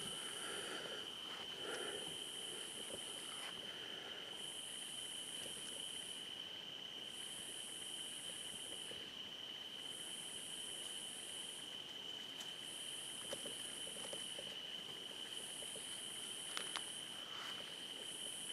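Night insects calling: a steady high-pitched trill, and above it a higher, buzzier song that comes in regular bouts about a second long, roughly every two and a half seconds.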